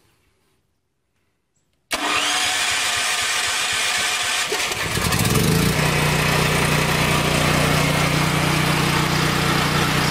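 Portable generator engine fed by propane. After near silence it comes in suddenly about two seconds in, rises in pitch about five seconds in and settles into a steady governed run.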